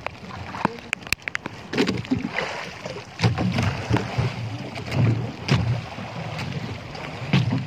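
Sea water sloshing and splashing against an outrigger fishing boat while a fishing net is hauled in by hand, with a few sharp knocks in the first second and a half.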